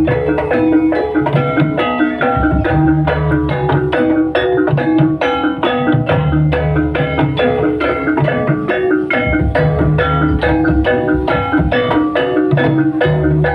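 Gamelan music accompanying a jaranan dance: a quick, even stream of mallet-struck metal notes over low drum beats.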